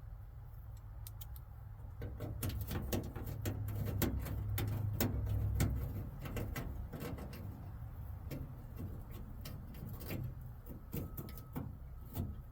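Irregular light clicks and taps of a screwdriver and metal door hardware being handled, over a low steady rumble.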